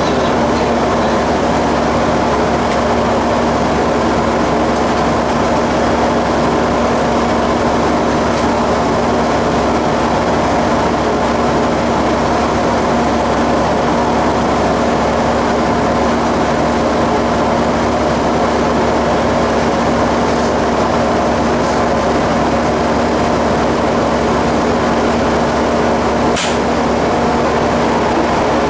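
Diesel engine of a former JNR KiHa 30 series railcar idling, heard inside the driver's cab while the railcar stands still: a steady, unchanging drone. A single sharp click comes near the end.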